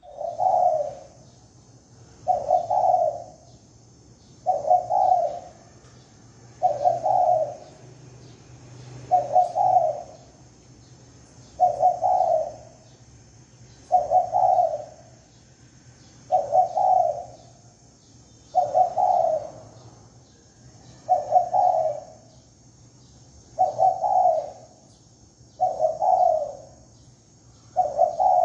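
Spotted dove cooing: a short phrase of a few low coos, repeated steadily about every two seconds.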